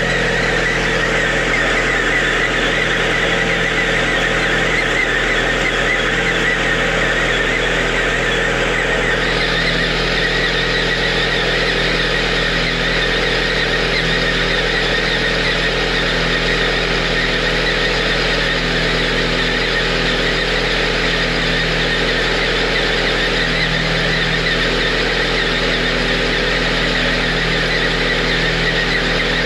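Lada Priora 1.6 16-valve four-cylinder engine idling cold, with a steady high whistle from around the timing-belt end. The whistle comes only on a cold engine in frost below −5 °C and always fades after a few minutes of running. The owner suspects the timing belt, its rollers or the water pump, or the alternator belt bedding in in the cold.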